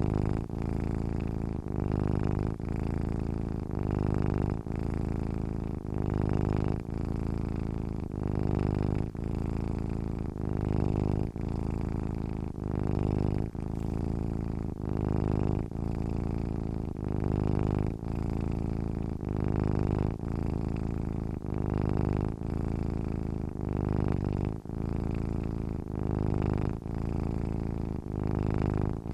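Domestic cat purring steadily while asleep, the low buzz swelling and easing with each breath, about one breath every two seconds with a brief break between strokes.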